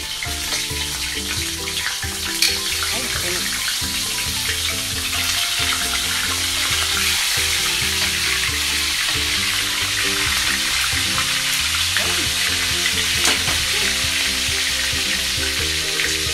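Talakitok (trevally) fish pieces deep-frying in hot oil, a steady, even sizzle. Soft background music plays underneath.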